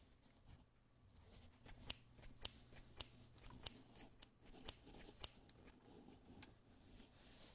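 Faint handling of a cardboard toilet-roll tube and its cut-out pieces: about six sharp little clicks, roughly one every half second, starting about two seconds in.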